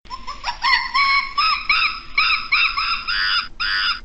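Primate calls: one rising call, then a quick series of repeated arched hoots, about two to three a second.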